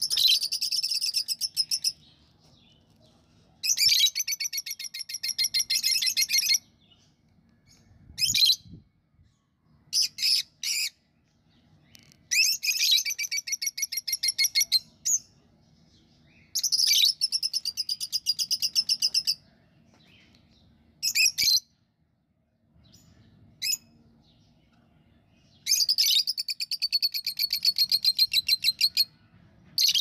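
Budgerigars chattering: bouts of rapid, pulsing warble one to three seconds long, with short chirps between the bouts.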